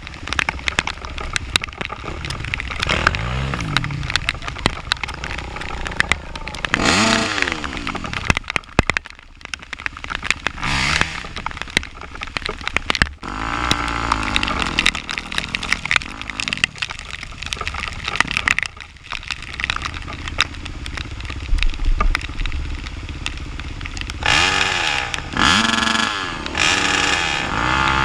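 Off-road vehicle's engine revving up and down again and again under riding load, with many clicks and knocks mixed in. The revving grows louder and busier near the end.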